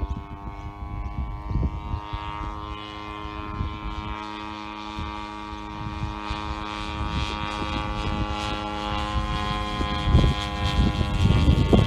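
Brison Sachs 108cc two-stroke petrol engine of a 1/3-scale Stearman model biplane, turning a 27x10 propeller, running steadily in flight and growing louder over the last few seconds as it flies closer.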